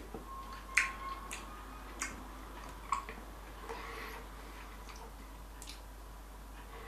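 A few light, irregular clicks and taps of a knife against a wooden cutting board while a chili is being cut.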